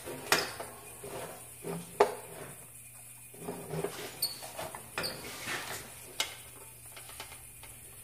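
Handling noises at a metal workbench: a marker scratching and squeaking on a painted sheet-metal panel, with sharp clicks and taps of the panel and tools, the loudest two about a third of a second and two seconds in.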